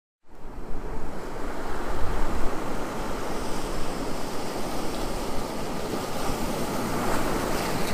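Ocean surf breaking on a beach: a steady, even rush of waves that cuts in suddenly out of silence.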